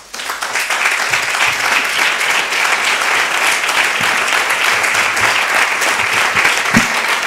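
A roomful of people applauding, the clapping starting suddenly and holding steady.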